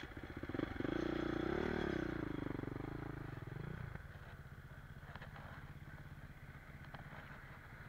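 Dirt bike engine revving up and easing back for about three seconds, then settling to a steady, quieter, lower running note.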